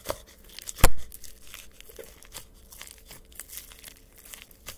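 Yellow slime with white foam beads being squeezed and poked by hand in a plastic cup: a run of small crackles and pops, with one loud thump about a second in.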